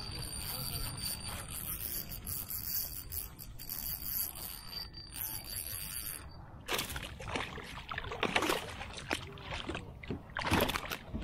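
A hooked fish thrashing and splashing at the surface beside a kayak. A run of splashes starts about two-thirds of the way in, and the loudest comes near the end.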